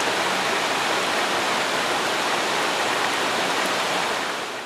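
Heavy rain falling steadily: a dense, even hiss that eases off slightly near the end.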